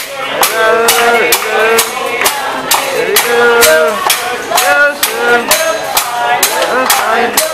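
A man singing a song while a few people clap along in a steady beat, about three claps a second.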